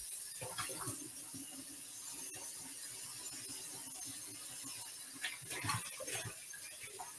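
Quiet handling sounds from trimming fat off raw chicken breasts: a few light knocks and clicks about five to six seconds in, over a low steady hiss.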